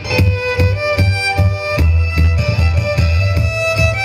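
Violin playing a melody over an amplified backing track with heavy bass and a steady beat.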